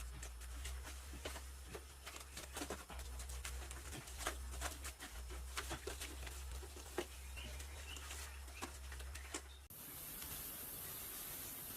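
Irregular light clicks and taps, several a second, over a steady low hum; they stop abruptly near the end, where the background changes.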